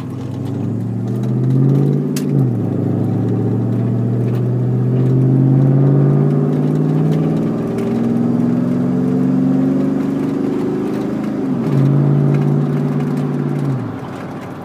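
Chevrolet Silverado pickup's exhaust through hollowed-out glass-pack mufflers, heard inside the cab as the truck pulls away and accelerates. The engine note climbs, drops sharply about two seconds in as the transmission shifts up, then pulls steadily. Near the end it surges again before falling away as the throttle eases.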